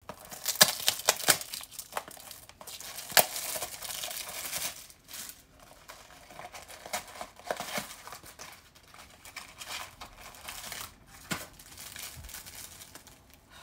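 Packaging of a box of tea bags crinkling and tearing as it is handled and opened by hand, with sharp snaps and clicks, several in quick succession in the first few seconds.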